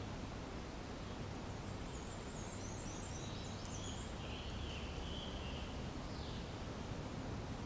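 Steady outdoor background noise with a low hum, and a run of short, high chirps in the middle, from a bird or insect.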